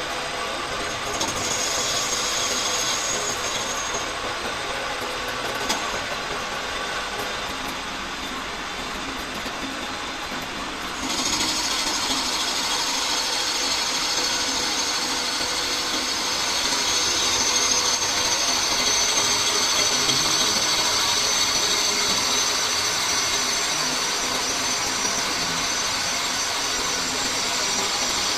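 Metal lathe running steadily while turning a brass bush. Its sound grows louder and harsher, with more high hiss, about eleven seconds in.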